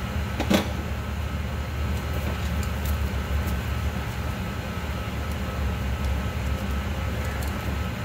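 A steady low mechanical hum, with one sharp click about half a second in.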